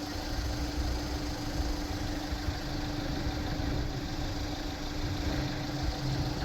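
A vehicle engine idling steadily, with a low rumble and a constant hum.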